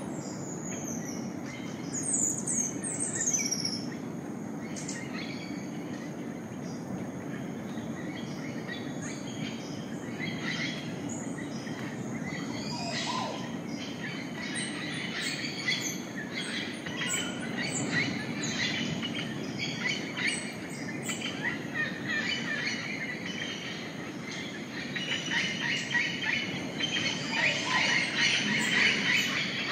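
Tropical rainforest dawn chorus: many birds chirping and calling at once over a steady low background. A few high, falling whistles come a couple of seconds in, and the chirping grows denser and louder near the end.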